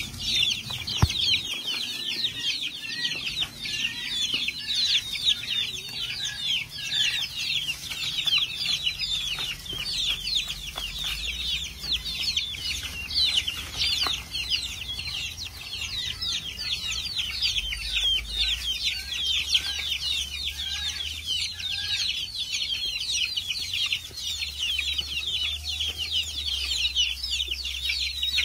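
A brooder full of young chicks peeping nonstop, many short, downward-sliding peeps overlapping into a steady chorus.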